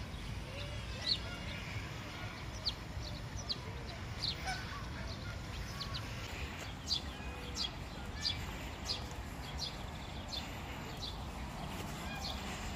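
Birds chirping: short, high calls repeating about once a second, over a steady low rumble.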